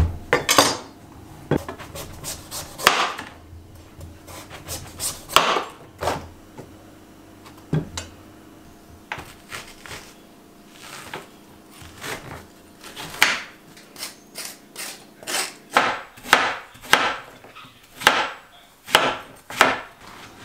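A large knife cutting through a giant zucchini and striking the cutting board with single knocks, then a spoon scraping out the seeds, then quick repeated chopping as the flesh is diced.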